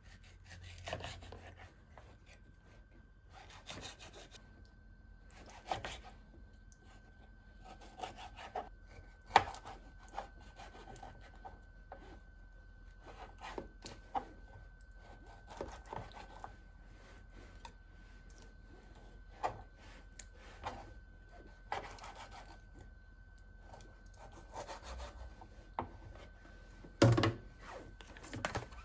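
Knife sawing and cutting through raw meat on a chopping board: irregular scraping strokes with occasional sharp knocks of the blade on the board, the loudest knocks near the end.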